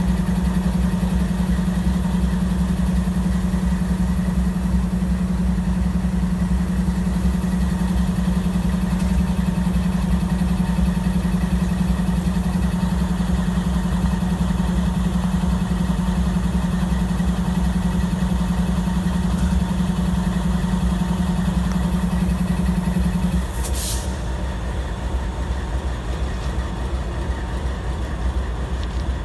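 Diesel freight locomotive engine running with a steady low drone, which drops away about 23 seconds in, followed by a brief hiss.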